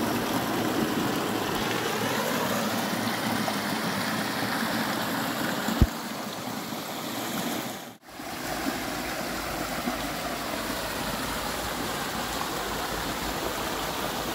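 Small mountain-stream waterfall splashing into a rock pool, a steady rush of falling water. A single short knock about six seconds in, and the sound drops out for a moment near the middle before the water goes on.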